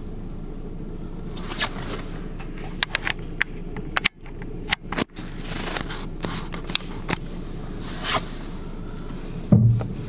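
Steady rumble of a car on the move, heard from inside the cabin, with scattered sharp clicks and rustles of handling throughout and a short low thud near the end.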